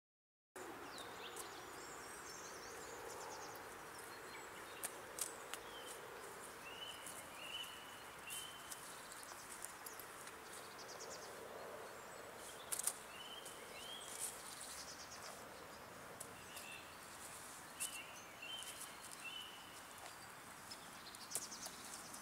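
Faint outdoor ambience after a moment of silence: a steady background hiss with small birds calling in short rising chirps, often in pairs, scattered throughout, and a few sharp clicks.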